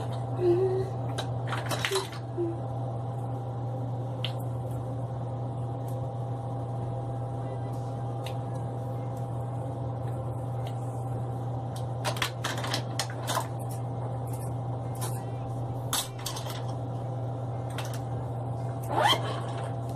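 A steady low hum with scattered clicks and light clattering now and then, bunched together about twelve seconds in and again near the end.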